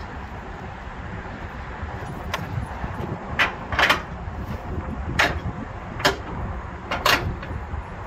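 Flatbed cargo strap hooks clinking and clanking against the trailer's metal side rail as straps are thrown over and hooked: about six sharp metallic knocks, loudest about four and seven seconds in, over a steady low background rush.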